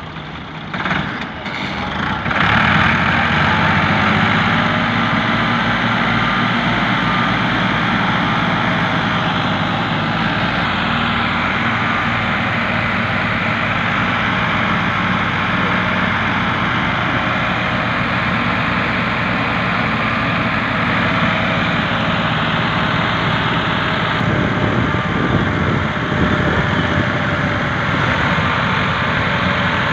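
Ford tractors' three-cylinder diesel engines opening up about two seconds in, then running hard and steady at high revs under heavy load as they pull and push a sack-laden trailer through soft soil.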